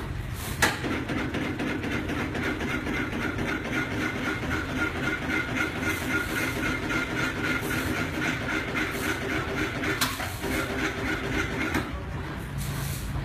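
Small enclosed CNC wood-carving machine running, its spindle and axis motors carving a wooden workpiece with steady mechanical noise and a fast, even rattle. A sharp click stands out shortly after the start and another about ten seconds in.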